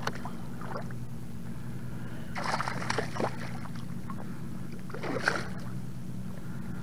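A hooked fish thrashing and splashing at the water's surface beside the boat, in two bursts, the first about two and a half seconds in and the second about five seconds in, over a steady low hum.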